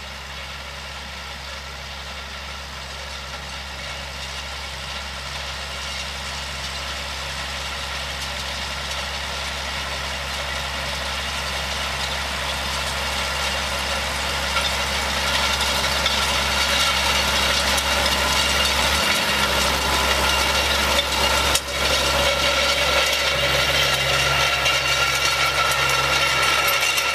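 Massey Ferguson tractor's diesel engine running steadily under load as it tows a harrow across a field, getting steadily louder as it approaches and comes close by.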